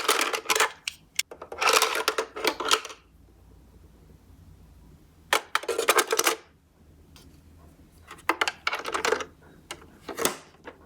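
Small die-cast toy cars clattering and knocking against each other and their box, in about six short rattling bursts separated by quiet gaps.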